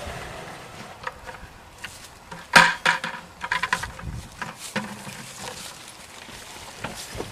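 Sap poured from a plastic bucket into a galvanized metal gathering tank. About two and a half seconds in there is a single loud knock with a short ring, then a quick run of clunks as the buckets are handled and stacked.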